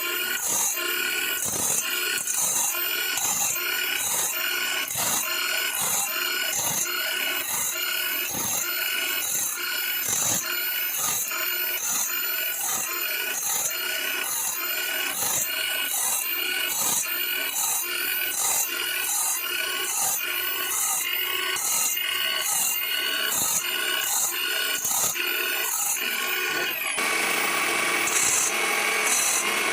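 A 7-inch grinding stone driven by an electric drill sharpens a bandsaw blade, grinding tooth after tooth in a steady rhythm of about two strokes a second. Near the end it grinds without a break for a couple of seconds, then the rhythm resumes.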